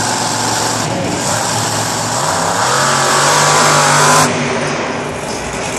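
Monster truck's supercharged V8 engine revving up about two seconds in, held at high revs for about two seconds, then suddenly coming off the throttle, over steady stadium crowd noise.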